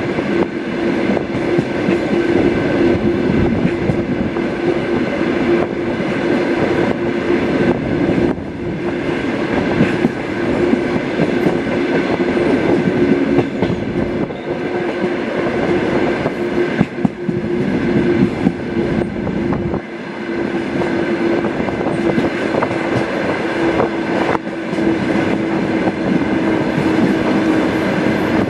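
Suburban train carriage running along the track, heard from the last carriage: a steady rolling rumble of wheels on rails with a steady hum and occasional knocks.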